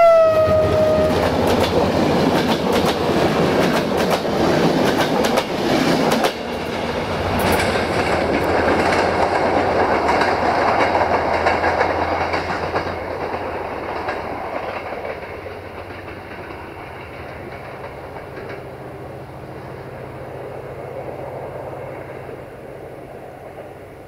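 A diesel-electric locomotive's horn dips in pitch and cuts off about a second in. The locomotive and its passenger coaches then pass close by, their wheels clicking over the rail joints. The train noise fades steadily as the train draws away.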